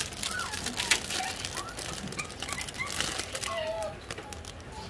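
Clicking and rustling from handling things in a wire-mesh animal cage, with a scatter of short, high chirps that slide up or down in pitch throughout.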